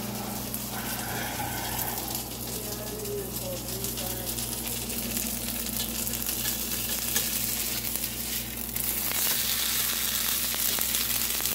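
A slice of pizza frying in a nonstick pan: continuous sizzling and crackling over a steady low hum. The sizzle gets louder about nine seconds in.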